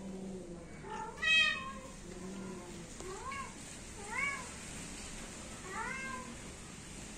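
Persian cat meowing four times: one loud meow about a second in, then three shorter, softer meows that rise and fall in pitch.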